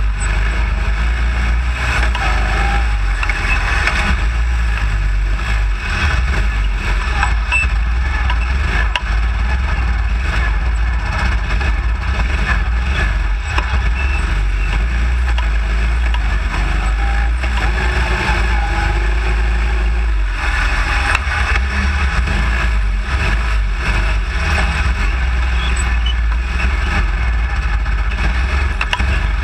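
Baja SAE off-road car's small single-cylinder engine running without a break through tight manoeuvring, steady and loud.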